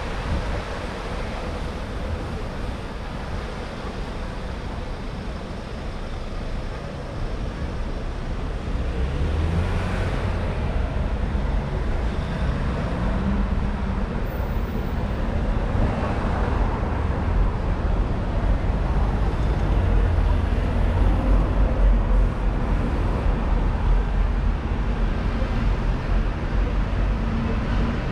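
Road traffic on a busy city-centre street: cars, taxis and buses passing, engines and tyres, with a low engine rumble that grows louder after about eight seconds.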